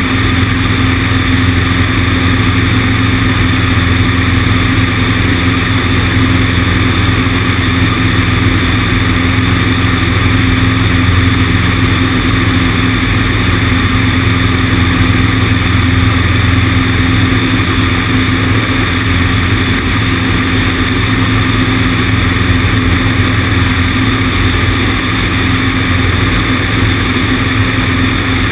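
Cessna 150's four-cylinder Continental O-200 engine and propeller droning steadily, with air rushing over a wing-mounted camera's microphone.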